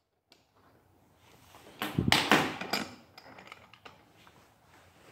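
A handful of metal clunks and rattles about two seconds in, then faint clicks, from the gear puller and vise grips being worked on the GY6 scooter crankcase as the kickstart gear comes off the crankshaft.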